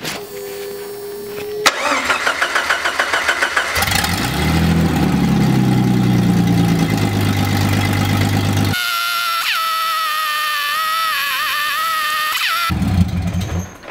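A Jeep Cherokee's 4.0 inline-six is cranked by the starter in quick rhythmic pulses and catches a couple of seconds in. It revs up and settles into running. Later a whine with a wavering pitch takes over.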